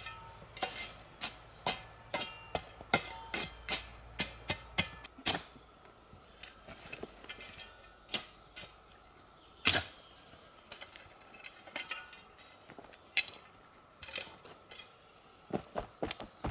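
A series of sharp, irregular clicks and knocks, about two a second at first and sparser after about five seconds, with one louder knock near the middle.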